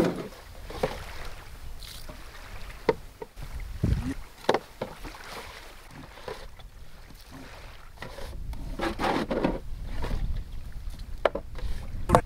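Peeled wooden poles knocking and scraping against a loaded canoe as they are pulled off it: a few separate wooden knocks, then a stretch of rope and gear rustling in the later seconds.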